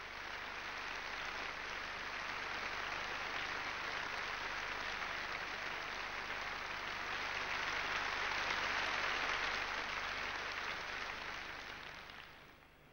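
Audience applauding in a large hall to welcome the conductor to the podium. It builds for several seconds, then dies away near the end.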